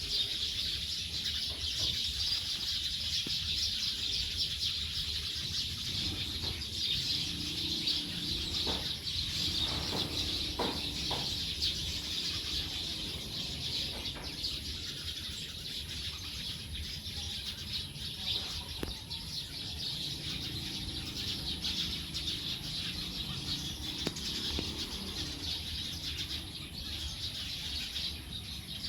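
Dense chorus of many small birds chirping at once, a continuous high twittering from a flock settling to roost for the night.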